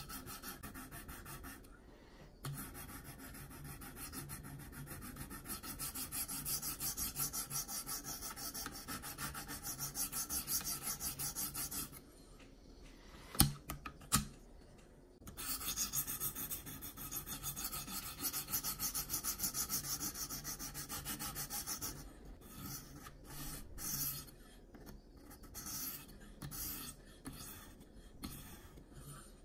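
Sharpening stone on a KME guided sharpening system rasping in quick, light back-and-forth strokes along the CPM 20CV steel edge of a Spyderco Yojimbo 2, working to knock down the burr. About halfway through the strokes stop for two sharp clicks as the clamped blade is flipped over, then the strokes resume on the other side and grow sparser near the end.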